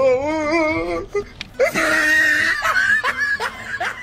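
A human voice in a drawn-out, wavering wail, then strained whimpering sobs: mock crying in dismay.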